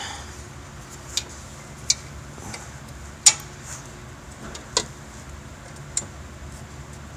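Five sharp, irregularly spaced metallic clicks and taps from bolts and tools being handled against the metal mounting plate, the loudest about three seconds in, over a steady low hum.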